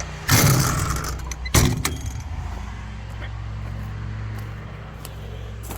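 Kobelco excavator's diesel engine starting: two loud bursts in the first two seconds, then a steady idle.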